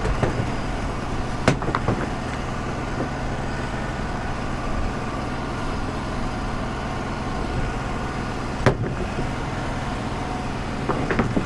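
Wood-Mizer LT35 portable sawmill running steadily, its engine and dust-collector blower giving a constant drone, with two short sharp knocks, one early and one about three-quarters through.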